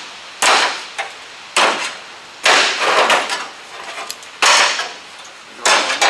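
Locking pliers being released one by one from a sheet-metal trunk extension panel and pulled off, each giving a sharp metallic clack: about six clacks, roughly a second apart.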